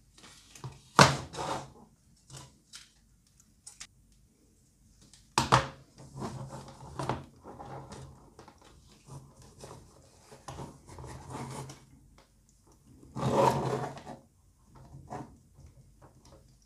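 Stainless steel adjustable cake ring being fitted and closed around a cake: a few sharp metal knocks and clanks, with scraping and rubbing of the ring's band and a longer scrape about three-quarters of the way through.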